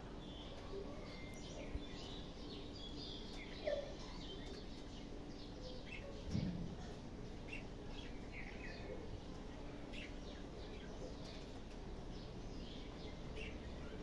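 Pet budgerigars chirping in their cage, with many short, high chirps scattered throughout. A brief low thump about six seconds in.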